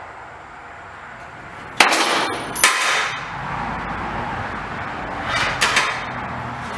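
Metal clanking as steel tools strike the garage door's torsion-spring hardware. There are two loud, sharp ringing clanks about a second apart, then two or three softer ones a few seconds later.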